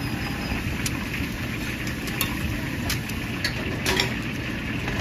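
Street-food cooking: metal utensils clinking sharply against a pan several times over a steady low rumble of frying and stall background.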